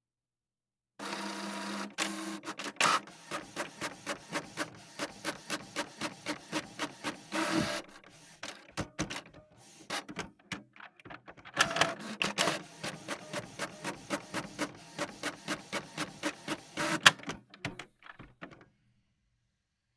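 A printer printing: a fast, regular mechanical clatter of about four strokes a second. It starts about a second in, eases off briefly in the middle, and stops shortly before the end, with one sharp louder click just before it stops.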